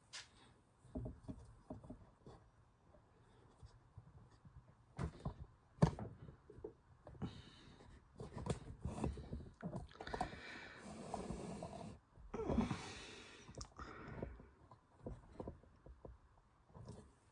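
Quiet handling sounds of plastic containers and lids on a table: scattered light clicks and knocks, with a stretch of rustling about ten to thirteen seconds in.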